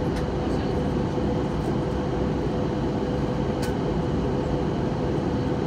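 Steady in-flight cabin noise of an Airbus A320neo: rushing air and engine hum with a constant mid-pitched tone running through it, and one faint click a little past halfway.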